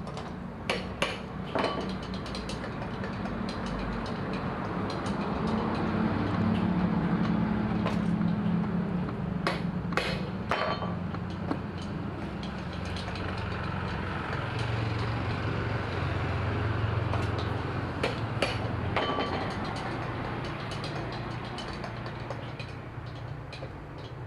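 Scattered sharp metallic clinks and knocks, a few close together at a time, over a low engine hum that swells and fades twice and drops in pitch between the swells.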